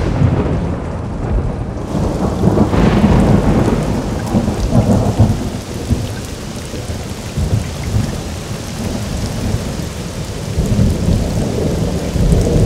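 Heavy rain and thunder: a thunderclap right at the start, another about three seconds in, and low rumbling under a steady downpour.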